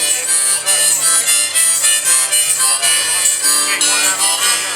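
Live band playing an instrumental passage, no singing yet, with a reedy lead line over the accompaniment.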